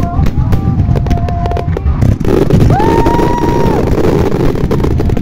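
Fireworks display: a steady low rumble of shell bursts, with rapid crackling for the first couple of seconds. About three seconds in, a whistling tone rises, holds for about a second and falls away.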